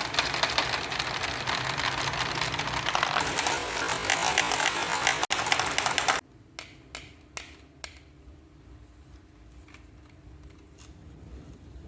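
Many marbles rolling and clicking down a marble-run track, a dense rapid clatter that cuts off suddenly about six seconds in. A few separate clicks follow, about two a second, then a couple of faint ones near the end.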